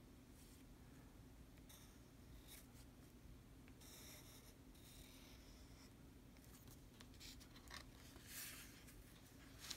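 Fountain pen nib scratching faintly on paper in short strokes as large characters are written. Near the end comes a longer, louder rub of the paper being handled, then a single sharp tick.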